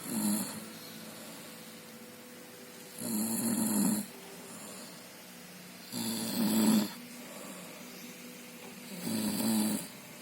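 Snoring: four loud, rough snores at a steady pace, about one every three seconds.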